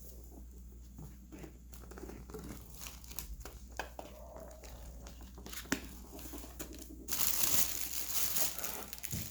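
A book's packaging being handled and opened by hand: scattered rustles and clicks, then a louder, continuous crinkling and tearing of the wrapping from about two-thirds of the way in.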